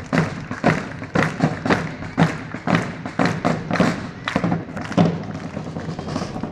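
Drum corps of medieval-style side drums beating a steady marching rhythm, loud accented strokes about twice a second with lighter strokes between.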